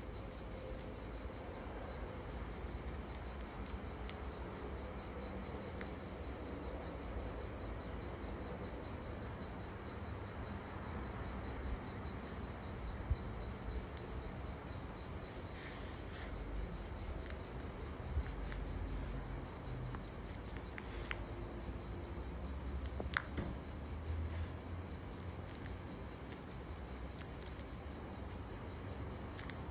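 Crickets chirping in a steady, continuous high-pitched trill, with a few brief sharp clicks in between.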